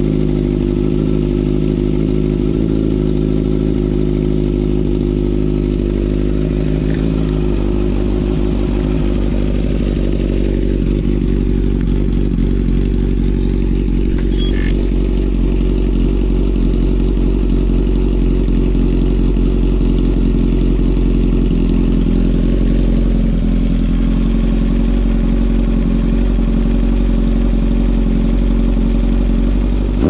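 Kawasaki Z900's inline-four engine idling steadily, with a brief click about halfway through.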